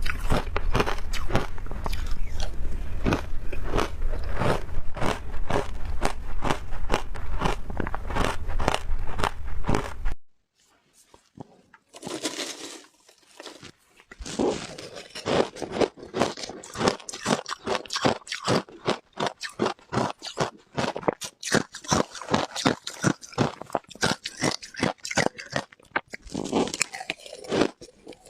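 Close-up crunching and chewing of frozen ice, bite after bite in quick succession. The crunching breaks off for a few seconds about ten seconds in, then resumes.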